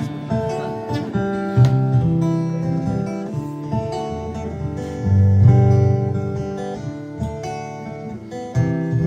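Solo acoustic guitar playing the song's instrumental intro, plucked notes ringing over held chords.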